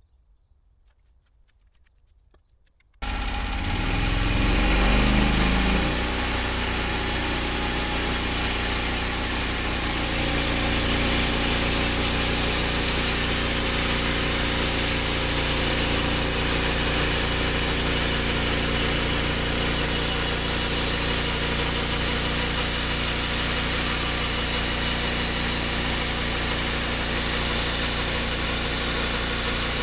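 An engine starts about three seconds in, rising in pitch for a couple of seconds, then runs steadily with a strong hiss.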